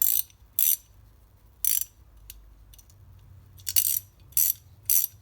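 The ratchet in an SW Stahl 18 mm extra-long double box-end ratcheting wrench clicking in about six short, quick bursts as the wrench is swung back and forth. The ratchet is brand new and not yet worked in.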